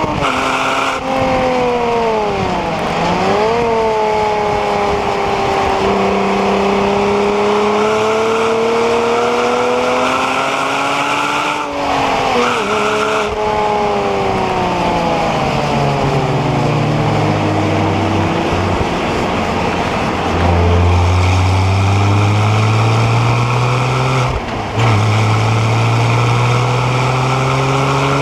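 Porsche Cayman 987's 2.9-litre flat-six engine driven hard on a race circuit. Its note falls sharply about three seconds in, then climbs and sinks in long sweeps, with brief breaks around twelve and twenty-five seconds in.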